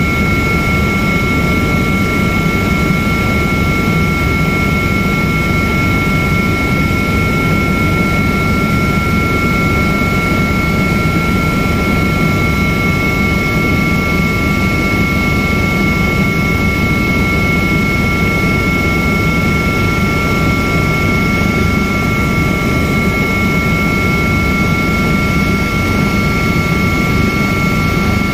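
Helicopter cabin noise in flight: the steady, loud rumble of the rotor and turbine engines, with a constant high-pitched whine of two tones running over it.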